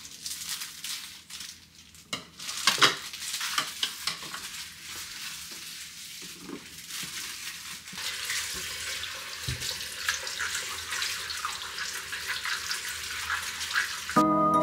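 Kitchen tap running into a sink while fruit is rubbed and washed by hand under the stream, with splashing and small knocks against the sink. Music comes in right at the end.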